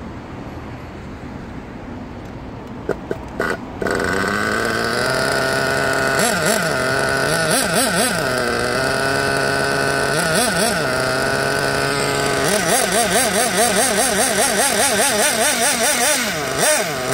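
Small nitro (glow) engine of a 1/8-scale RC buggy: after a few clicks it is running loud and steady from about four seconds in, with a high whine. Its revs wobble quickly up and down several times, most of all in the last few seconds, while the engine is being set up.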